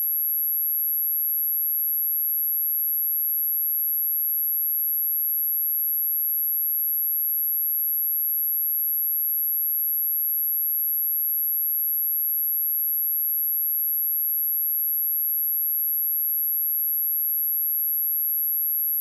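A steady, high-pitched pure sine tone at 11622 Hz, held unchanged: a test tone for checking speakers and headphones, also played to shake water and dust out of a speaker.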